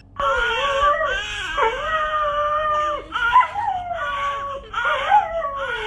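A dog howling in long, wavering notes together with a newborn baby crying, with a short break about three seconds in.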